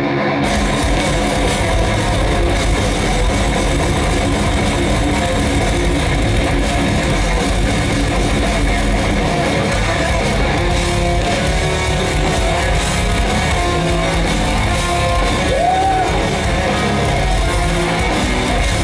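Heavy metal band playing live: distorted electric guitars, bass guitar and drums, loud and dense without a break, heard through the PA from within the crowd.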